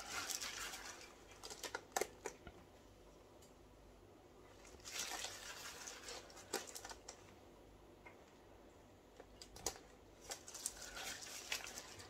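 Paper tissue rustling and nitrile gloves crinkling as hands wipe away overflowed resin, in three short spells, with a few light taps in between.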